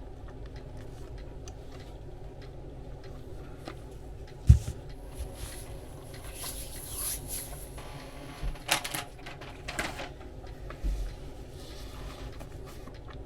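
A person eating a sub sandwich: quiet chewing with scattered short noisy bursts. A sharp knock comes about four and a half seconds in.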